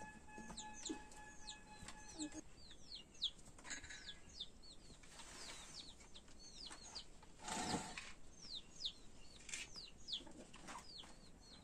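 Chicks peeping over and over in short, high, falling chirps, with a brief rustle about two-thirds of the way through. A faint steady tone sounds for the first two seconds or so.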